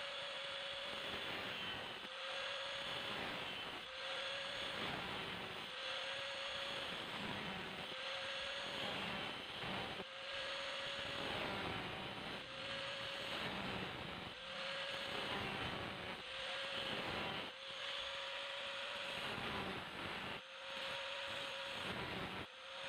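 A steel saw blade being sharpened into a grass knife, in repeated passes about every two seconds, each pass bringing a steady whine over a gritty hiss.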